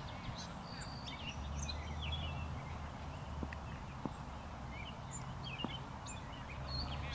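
Birds chirping and calling in short high notes over a steady low hum of outdoor background noise, with a few faint clicks.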